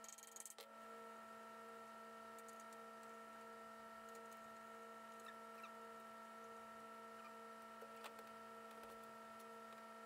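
Near silence: a steady faint electrical hum, with a brief rustle of handling in the first half-second and a few faint clicks.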